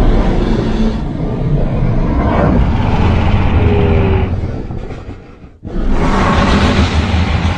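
Tyrannosaurus rex roar sound effects, long and loud with a deep rumble underneath. One roar fades away about five seconds in, and a new one breaks in suddenly about a second later.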